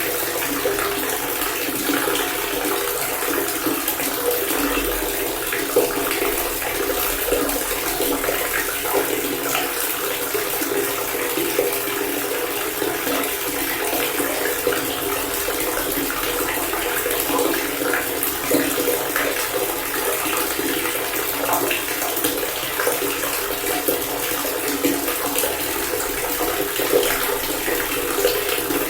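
Water running steadily from a faucet, a continuous splashing pour with no let-up.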